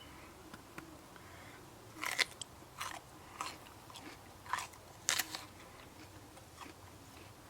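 Crunching bites and chewing of a raw pepper, in several short, irregular crunches.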